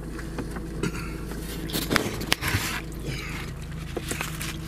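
Clicks, scrapes and rustles of a clear plastic takeout clamshell and a fork being handled close to the microphone, over a steady low hum.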